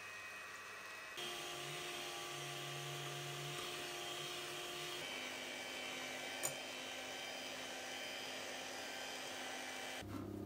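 Electric hand mixer running, its twin wire beaters whipping eggs and sugar into a thick sponge-cake batter in a glass bowl: a steady motor whine. About five seconds in the motor's pitch drops as it runs at low speed to even out the batter's texture, and a single sharp tick comes shortly after.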